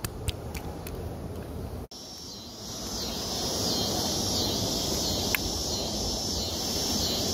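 A steady, high-pitched insect chorus, like crickets or cicadas, comes in about two seconds in. Before it there are a few light clicks from fishing gear being handled.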